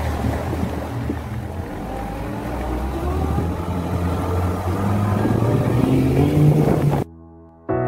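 Suzuki outboard motor driving a boat through the water, a steady low drone over the rush of the wake, its pitch and level rising as it speeds up. It cuts off abruptly about seven seconds in.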